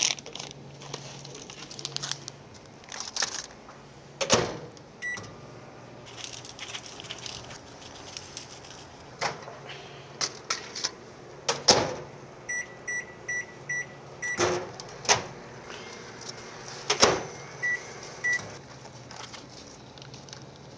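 Daewoo convenience-store microwave oven in use: several sharp door clunks, a single keypad beep, then a run of five quick beeps and later two more, with packaging being handled in between over a low steady hum.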